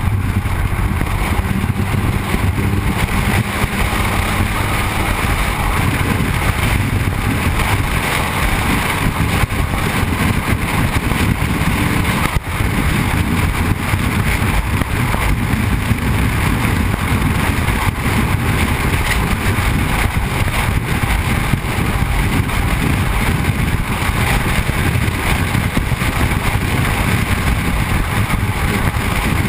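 Steady rush of wind and tyre-on-road noise from a moving car, picked up by a camera mounted low on the car's side close to the wheel. It drops out briefly about twelve seconds in.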